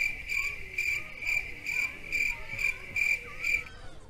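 High-pitched pulsing chirp at a steady pitch, about two to three pulses a second, stopping abruptly near the end.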